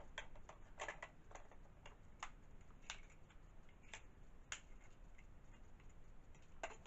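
Faint, irregular clicks and taps of hard plastic toy parts being handled and fitted together: a Kamen Rider Build driver belt and its small bottle pieces.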